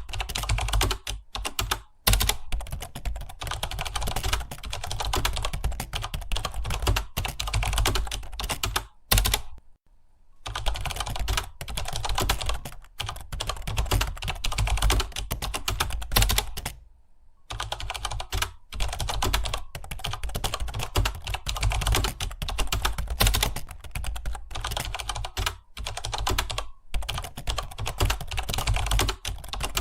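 Fast typing on a computer keyboard: a dense, continuous run of key clicks that breaks off briefly about ten seconds in and again about seventeen seconds in.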